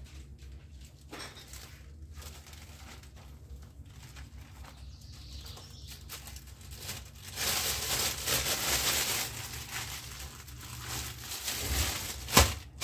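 Thin plastic bag crinkling and rustling as it is pulled over and wrapped around a ball of dough, starting about seven seconds in, over a steady low hum. A single sharp thump near the end.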